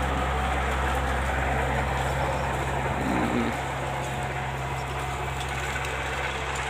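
Brick kiln's coal machine running with a steady low mechanical hum, a little quieter from about halfway. A faint voice is heard briefly about three seconds in.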